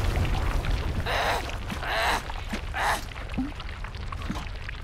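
Cartoon sound effects of erupting lava: three short rushing bursts about a second apart over a deep, steady rumble.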